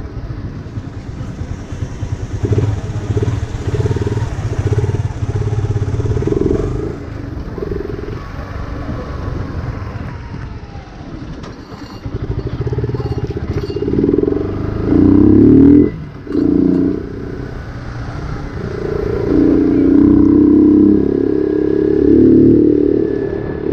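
Yamaha R15 V2's 150 cc single-cylinder engine through a loud modified exhaust, heard from the rider's seat at low riding speed. It rises and falls with the throttle, with loud surges past the middle and again over the last few seconds.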